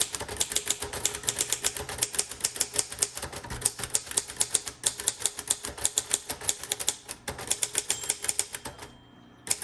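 1957 Royal Quiet Deluxe manual typewriter being typed on fast and steadily, with a continuous run of type-bar strikes that stops about nine seconds in. The typist keeps going past the margin bell until the carriage reaches the right margin and the keys lock.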